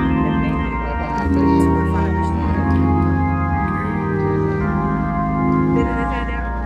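Organ playing slow, sustained chords over deep bass notes, the harmony shifting every second or few.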